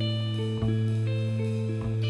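Instrumental passage of an indie rock recording, without vocals: guitar notes changing about every half second over a steady low held note.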